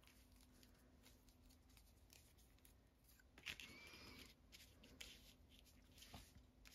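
Faint rustling and light ticks of paper and shimmer ribbon being handled, as the ribbon is pulled through a slot in a paper tag, with a brief louder scrape about three and a half seconds in.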